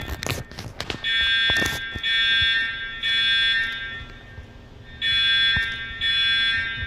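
Fire alarm sounder going off in the three-pulse temporal evacuation pattern: three steady tones of just under a second each, a pause of about a second, then three more. A few sharp knocks and taps come in the first two seconds.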